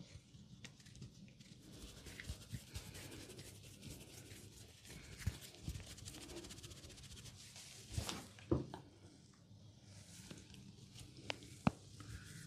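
Fingers rubbing and scratching through hair on the scalp during a head massage, a soft scratchy rustle, with a few sharp clicks, two about eight seconds in and two more near the end.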